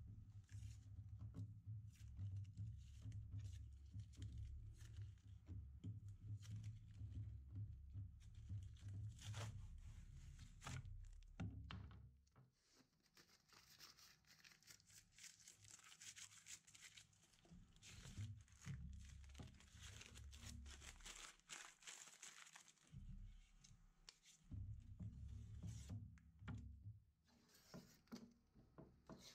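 Blue painter's tape being peeled off the roll, torn and pressed down by hand, making quiet crackling, ripping sounds in short stretches, with occasional soft thuds as the board is handled.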